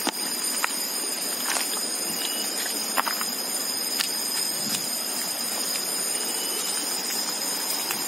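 Shallow stream running steadily over stones, with a few sharp clicks and a constant high thin tone over it.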